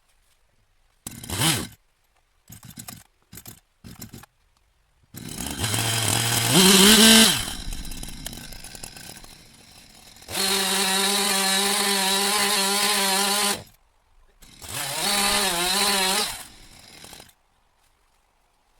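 Chainsaw engine revving in several bursts. A few short blips come first, then a rev that climbs in pitch and dies away, a steady high-revving stretch of about three seconds, and a last wavering rev, each cutting off abruptly.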